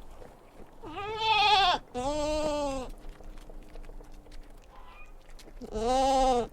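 A farm animal bleating: three quavering bleats, two back to back about a second in and a third near the end.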